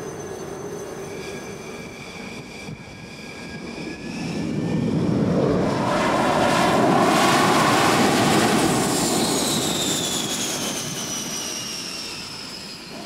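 Dassault Super Étendard jet fighter's engine on a carrier flight deck: a steady whine that grows much louder as the jet moves close past, loudest about seven seconds in, then fades with its whine falling in pitch.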